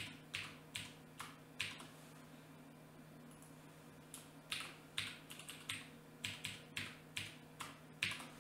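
Computer keyboard keys clicking as a password is typed: a few keystrokes, a pause of about two seconds, then a quicker run of about a dozen keystrokes.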